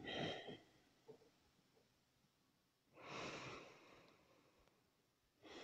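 Quiet, slow breathing of a woman close to a clip-on microphone: a soft exhale fading at the start, a breath of about a second about three seconds in, and another beginning near the end.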